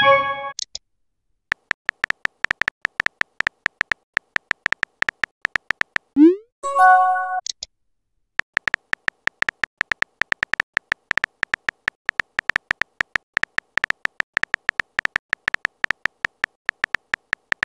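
Phone keyboard typing sound effect: rapid tapping clicks as a text message is typed out. About six seconds in the clicks stop for a rising swoosh and a short rising chime as a new message arrives, then the tapping resumes.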